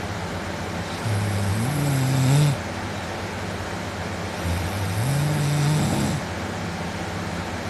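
A man asleep on his back snoring pretty loud: two long snores about three seconds apart, each rising in pitch as he breathes in.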